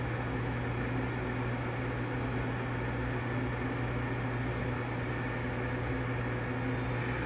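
TIG welding arc burning steadily during a root pass on Hastelloy C-276 pipe at about 80 amps: a steady low hum with an even hiss over it.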